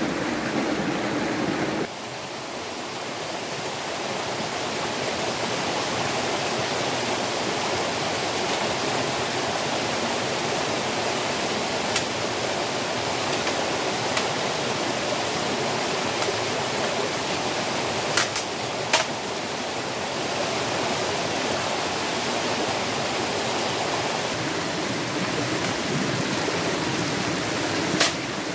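Mountain stream rushing and splashing over a rocky cascade, a steady, full sound of water. A few sharp clicks stand out over it, two or three close together about two-thirds of the way through and one near the end.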